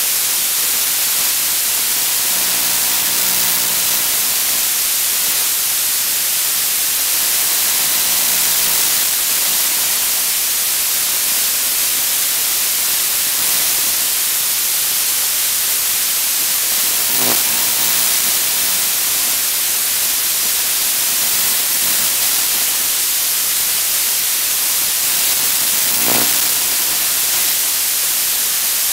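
Steady static hiss from an analog FPV video receiver's empty audio channel, with faint buzzy tones coming and going a few times.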